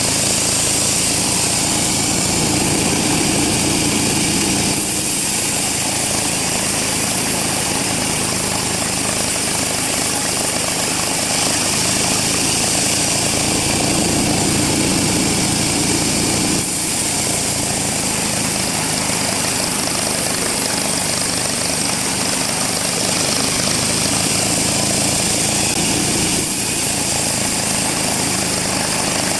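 Large sawmill band saw running and cutting teak. A steady, loud mechanical noise with a strong high hiss, swelling lower a few times and dipping briefly between passes.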